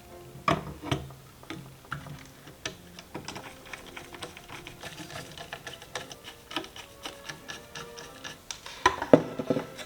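Small clicks and taps of computer parts being handled and fitted together during a PC build, irregular and close-miked, with a quick run of louder knocks near the end.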